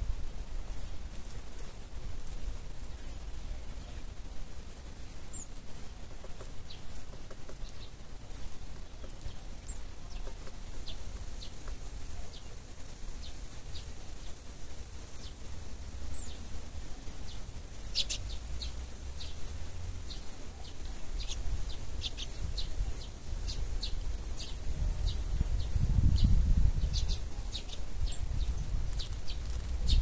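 Small songbirds chirping, with many short, high calls that come thicker in the second half. A low rumble of wind on the microphone swells near the end.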